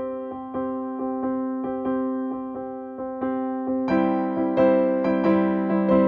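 Background music: a slow keyboard melody of struck notes that fade away, growing fuller about four seconds in.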